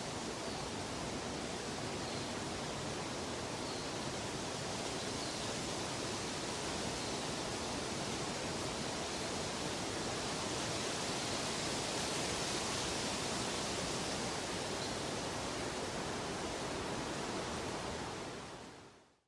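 Steady, even rushing noise, like a nature-ambience track of running water, that fades out to silence near the end.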